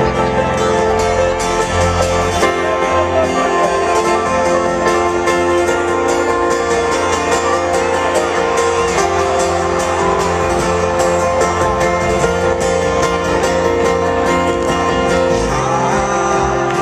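Live folk-rock band playing an instrumental break: fast-strummed acoustic guitar and banjo over bass and kick drum, with a steady driving rhythm.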